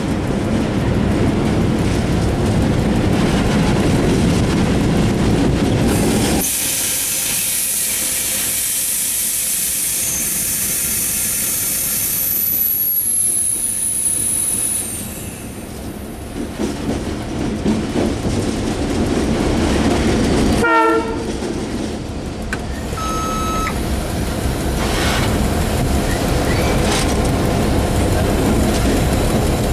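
Diesel locomotive running, heard from inside its cab: a steady low engine rumble with the wheels on the track. After about six seconds the rumble drops away behind a high hiss, with a high-pitched squeal lasting a few seconds near the middle. Brief pitched tones sound a little after two-thirds of the way in, and the low rumble returns near the end.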